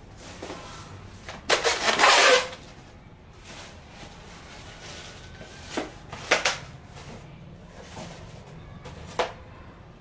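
Polystyrene foam packing and plastic wrap rubbing and scraping as a water heater is handled out of its foam end caps. A loud scraping rustle starts about one and a half seconds in and lasts about a second, followed by a few short knocks and scrapes around six seconds and once more near nine seconds.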